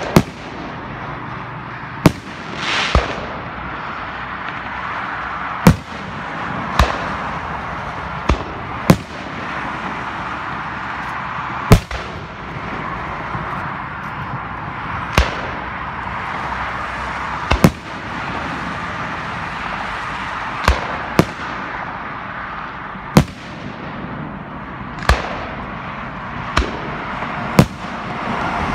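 Aerial firework shells bursting in the sky: about fifteen sharp bangs at irregular gaps of one to three seconds, some in quick pairs, over a steady background din.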